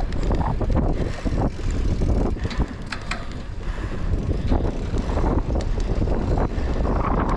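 Bicycle being ridden hard over rough dirt and gravel, with a steady low rumble of tyres and wind buffeting the microphone, and many quick clicks and rattles from the bike jolting over bumps.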